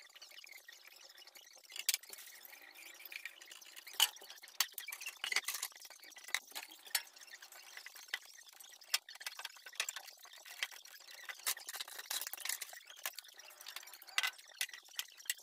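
Scattered light clicks, taps and rustles of household cleaning: objects being picked up and set down and a cloth wiping and dusting a shelf, in an irregular run of small sharp sounds.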